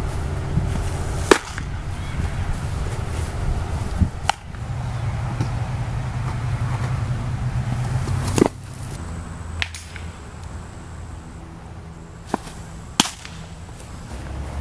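Baseball pitches smacking into a catcher's leather mitt: about six sharp pops a few seconds apart, the loudest two near the start and about two-thirds of the way through, over a steady low hum.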